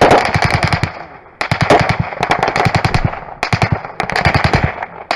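Close, rapid automatic gunfire in three long bursts of about ten shots a second, with short lulls about a second in and about three seconds in.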